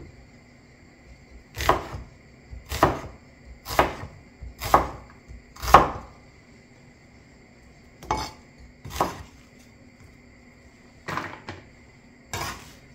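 Hammered-steel cleaver chopping peeled onions on a wooden cutting board: single sharp knocks about a second apart, then a few more scattered knocks after a short pause.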